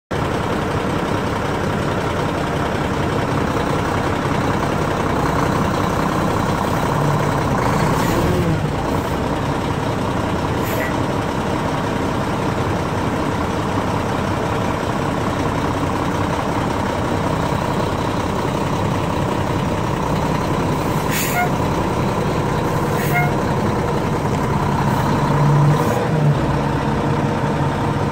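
Semi truck's diesel engine running steadily close by, with a few short sharp sounds along the way and a brief rise in level near the end as the truck moves off the shoes.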